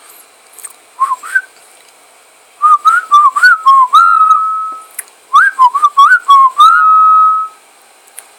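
Whistle-like electronic chirps from a microphone-in-a-pot feedback rig played through a bass amp and external speaker, sounding like R2-D2. Quick runs of short rising and falling bleeps alternate with two longer held tones.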